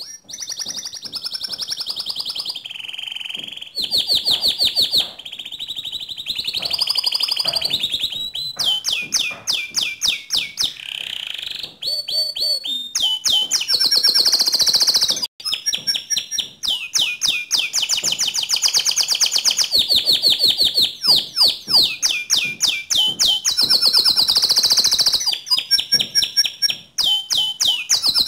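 Domestic canary singing continuously, a long song of rapid trills and rolls that switch to a new phrase every second or two.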